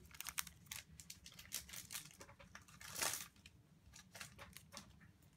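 Trading cards being handled and laid down on a playmat: light clicks and flicks of card stock, with a longer sliding swish about three seconds in.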